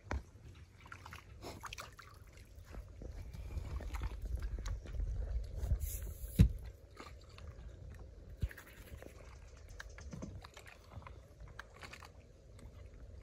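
Rustling and handling noise over a low rumble, with scattered clicks and one sharp knock about six seconds in, as a crappie is reeled in and lifted into a boat.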